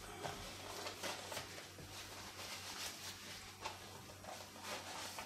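Faint, irregular rubbing and scuffing strokes of paper towel wiped over a plastic blister pack, clearing away sticker adhesive loosened with lighter fluid.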